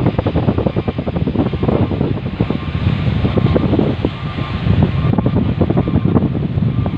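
Wind buffeting the microphone on a ferry's open deck: a loud, uneven, fluttering rumble over the steady drone of the ship underway.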